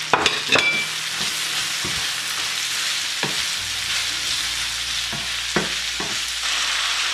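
Julienned vegetables sizzling steadily in a deep frying pan over high heat, while a wooden spatula stirs them and knocks against the pan a few times.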